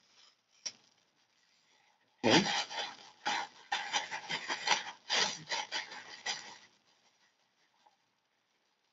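Thin plastic bag crinkling and rustling as it is handled and rice noodles are shaken out of it into a foam bowl: a dense run of crackles from about two seconds in until nearly seven seconds, with one short click shortly before.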